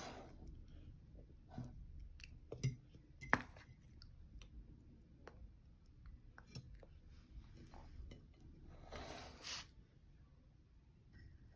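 A toddler eating soft noodles: quiet chewing and lip smacking, with scattered small clicks and taps and a short breathy hiss about nine seconds in.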